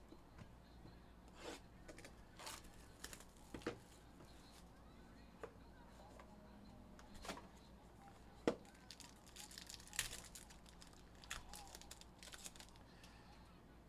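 Faint crinkling and tearing of a trading-card box's plastic wrapping, with scattered light clicks and rustles of cards being handled; one sharper click about eight and a half seconds in.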